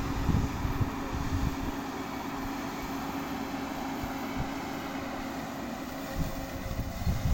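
JCB backhoe loader's diesel engine running steadily with a constant hum over a low rumble. Irregular low thumps come near the start and again near the end.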